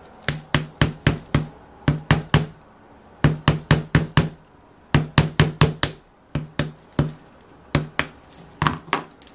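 Repeated sharp metal-on-metal taps, about four a second in bursts of two to six, each with a short low ring: a screwdriver handle tapping a heated wrist pin out of a model engine's piston, warmed until oil seeps out so the pin will drive free.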